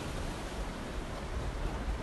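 Ocean surf washing up on a sandy beach as a steady rush, with a low rumble of wind on the microphone.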